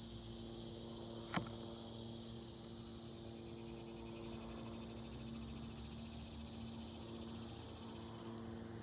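Insects trilling over a steady low hum. About a second and a half in, a single sharp click as the folding knife comes through the bolete's stem onto the wooden boards.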